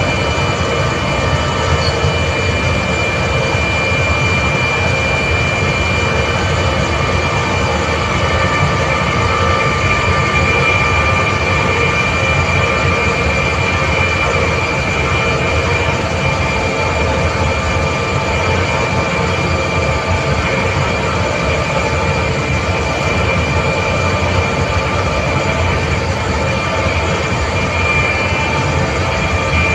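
Hitachi rotary screw air compressor running steadily, a dense mechanical noise with a high whine held at one pitch and several lower steady tones beneath it.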